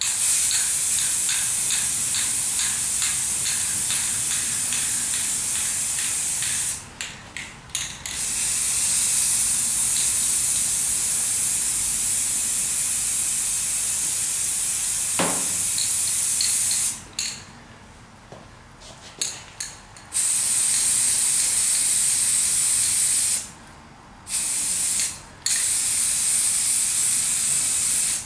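Aerosol spray can of flat grey primer hissing in five bursts, two of them long and three shorter near the end. Brief clicks and rattles come in the short pauses between bursts.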